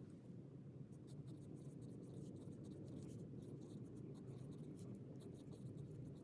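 Handwriting on paper, sped up to double speed: quick scratchy strokes, starting about a second in, over a steady low hum.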